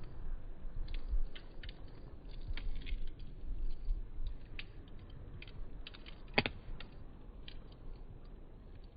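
Wood fire crackling with scattered irregular pops, one much louder pop about six and a half seconds in, over a low steady rumble.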